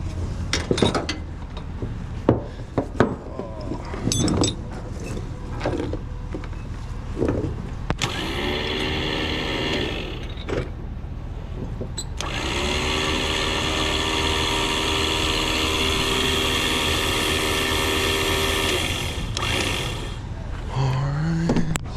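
Electric winch motor whining as it runs in two spells: a short one of about two seconds, then a longer one of about six seconds. Each spell rises in pitch as it starts. Scattered sharp metal knocks and clanks come before it.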